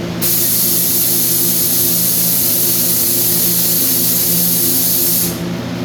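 A loud steady hiss, like air or spray rushing out, starts suddenly and cuts off about five seconds later, over a steady low machine hum.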